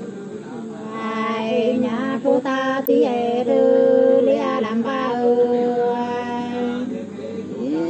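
Women singing sli, the unaccompanied Nùng folk song, in long drawn-out notes that bend up and down at the ends of phrases.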